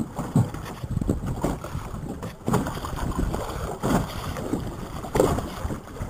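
Water splashing and sloshing in irregular surges as a diver moves in the water alongside a small boat, with wind rumbling on the microphone.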